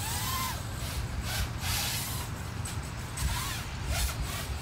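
Wind buffeting the phone's microphone, with the faint whine of a small racing quadcopter's motors rising and falling in pitch as the throttle changes.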